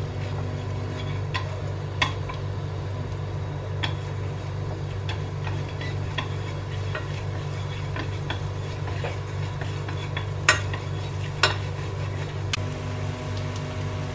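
Wooden chopsticks stirring dried red shrimp and chopped garlic frying in a little oil in a stainless steel pan, with a light sizzle and scattered sharp clicks as the chopsticks knock against the pan, the loudest about two-thirds of the way through. The aromatics are being sautéed until fragrant, over a steady low hum.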